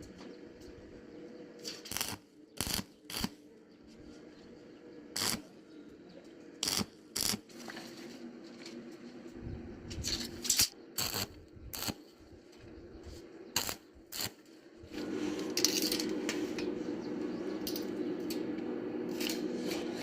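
Sharp metal clinks and knocks, a dozen or so at uneven intervals, as steel pieces are handled. About fifteen seconds in, a steady machine hum with a hiss starts and keeps running.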